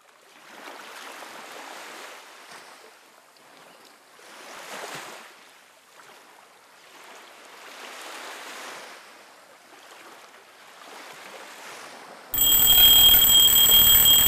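Gentle surf washing on a beach: a soft hiss that swells and fades every few seconds. About twelve seconds in, a loud alarm clock ringing cuts in suddenly, together with rock music with guitar.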